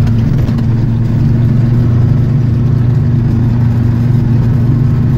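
Off-road 4x4's engine running steadily under load while driving through swamp mud, heard from inside the cab.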